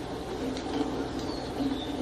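Wooden spatula stirring thick gravy in a steel kadai, with short scraping strokes against the metal over a steady low hum. A few faint high chirps come in about halfway through.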